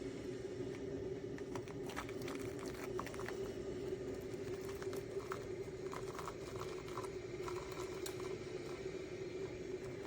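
Technivorm Moccamaster KBGV drip coffee maker brewing: a steady low hum with scattered faint ticks and pops.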